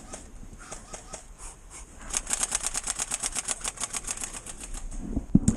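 Airsoft rifle firing a full-auto burst of about two and a half seconds, a rapid, even clatter of about a dozen shots a second, with scattered single pops before it. A loud thud near the end.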